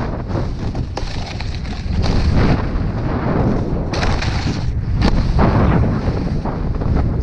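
Wind buffeting an action camera's microphone as a low rumble, over the scrape of a snowboard's base and edges on groomed snow. A louder scraping surge about four seconds in comes as the board slides onto a flat terrain-park box.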